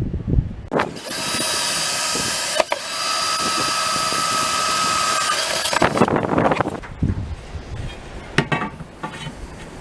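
Electric drill running steadily for about five seconds while boring a small pilot hole, with a short dip about a second and a half in. After it stops, a few light clinks and knocks follow.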